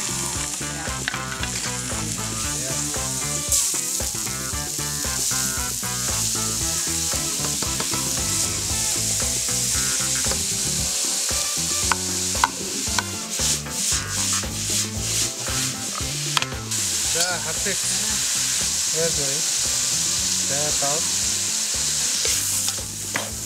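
Chopped bell peppers, greens and tomatoes sizzling in a hot frying pan as they are stirred with a wooden spatula. About halfway through come a run of sharp knocks and scrapes as diced tomatoes are pushed off a wooden board into the pan.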